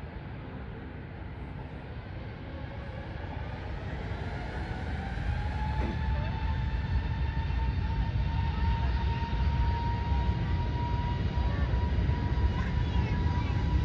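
Jet airliner engines: a low rumble growing steadily louder, with a whine that rises in pitch about a third of the way in and then holds steady.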